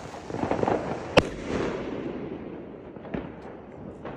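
A 38 mm firework shell rocket bursting overhead with one sharp bang about a second in, after a faint crackle as it climbs. A few fainter scattered pops follow.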